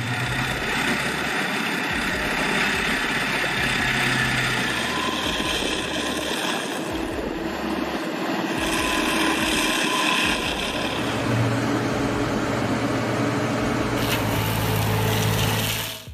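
Stump grinder running steadily: an engine hum under a dense, continuous grinding noise. It cuts off suddenly at the end.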